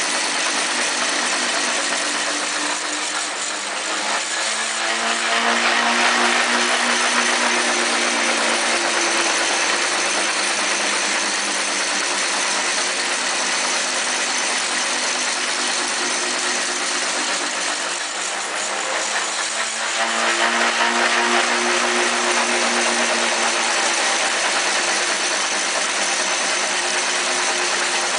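Motor-driven spinning rotor rig running steadily, a dense whirring rattle from the rotors and metal frame. Twice, about 4 and 18 seconds in, the level dips and then swells louder, with a low hum coming to the fore.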